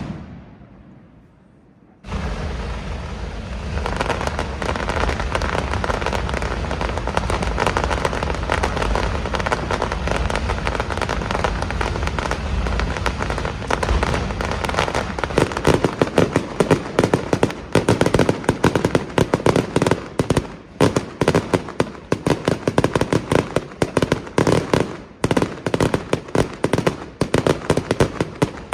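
Fireworks barrage. After a short lull, a dense, continuous rattle of firecracker bangs and crackling starts suddenly about two seconds in. In the second half it turns into rapid, louder separate reports with brief gaps between them.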